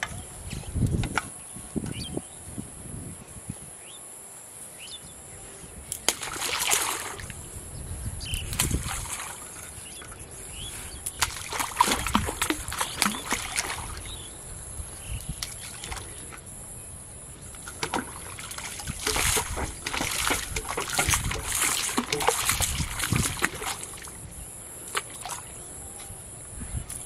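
Water splashing and sloshing in a few bursts of several seconds each.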